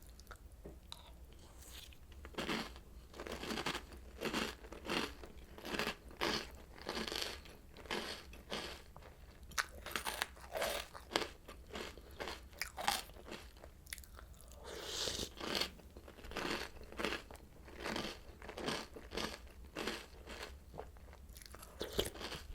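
Chewing a mouthful of Oreo O's cereal: crunching in a steady rhythm of about two crunches a second, with a short pause about 14 seconds in.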